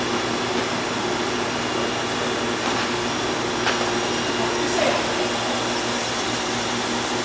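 Steady whirring hum and hiss of a CNC gun drill machine running, several steady hum tones under an even hiss.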